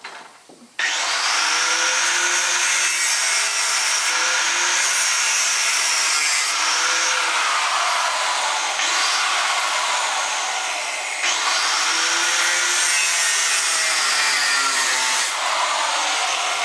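Handheld power grinder working on a steel hull plate, a loud, steady abrasive grinding that starts abruptly about a second in, with a few sudden shifts in pitch and level as the tool is moved along the plate.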